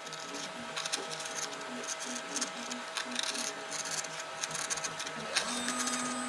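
A small #11 veiner gouge (3 mm) cutting fine hair lines into a wood carving: a run of short, scratchy strokes as the blade scrapes through the wood.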